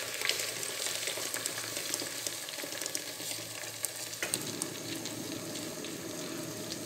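Hot oil sizzling and crackling as blended onion-tomato puree is poured into it over browned ginger-garlic paste and whole spices. The hiss turns lower and duller about four seconds in.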